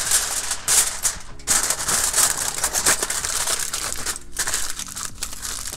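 Aluminium foil crinkling and crumpling in irregular rustles as it is wrapped around a potato.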